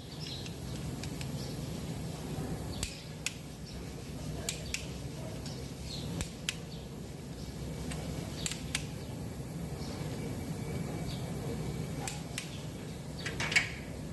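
Scattered light clicks and taps, about a dozen, of hand work on parts, over a steady low hum; one sharper click near the end.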